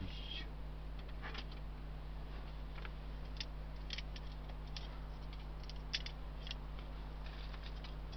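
Metal cooking tongs clicking and tapping in short, scattered ticks as slices of raw beef tongue are lifted onto a small charcoal grill, over a steady low hum.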